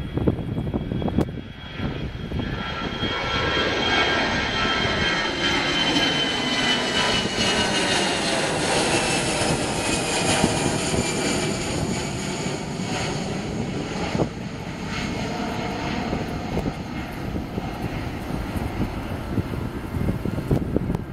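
The two CFM56-5B turbofan engines of an Airbus A320 climbing out at takeoff power as the jet passes overhead: a loud steady jet noise with a high fan whine that slowly falls in pitch, loudest around the middle and easing slightly toward the end.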